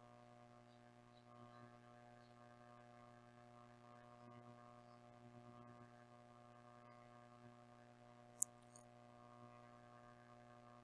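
Near silence: a faint steady electrical hum, with one short sharp click a little past eight seconds in.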